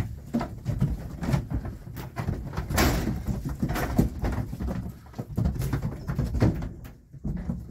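Tup lambs shuffling about inside a livestock trailer: hooves scuffling on the floor and irregular knocks against the metal sides and partition gate, over a low rumble.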